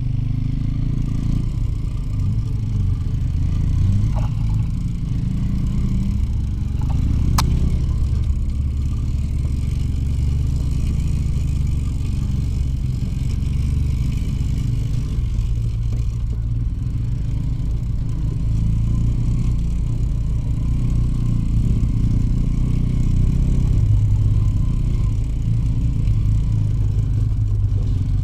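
Two-stroke motorcycle engine running steadily while riding.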